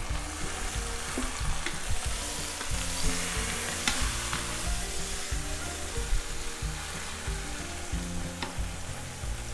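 Sirloin tip roast searing in hot olive oil in a multicooker pot, sizzling steadily. Metal tongs click against the pot a few times as the roast is turned.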